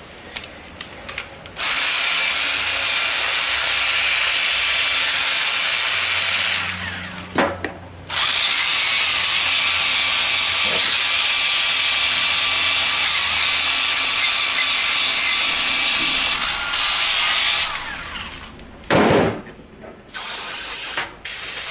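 Handheld power tool running at high speed as it grinds old head gasket material off an ATV cylinder head. It runs in two long stretches with a short break about seven seconds in, followed by a few knocks from handling parts near the end.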